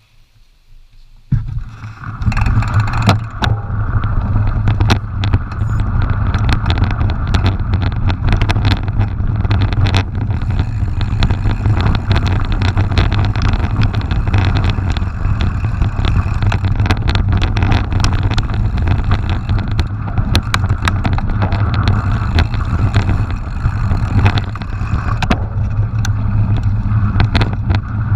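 Mountain bike ridden fast down a rough dirt track, heard from a camera on the bike or rider: a loud, steady rumble of wind and tyre noise with constant rattling clicks and knocks from the bumps. It starts suddenly about a second in.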